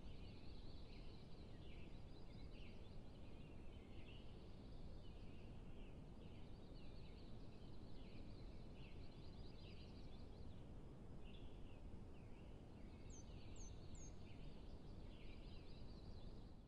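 Faint outdoor field ambience: a steady low rumble of wind or microphone noise under a continuous chorus of short, high chirping calls. Three quick, higher falling chirps come about thirteen seconds in.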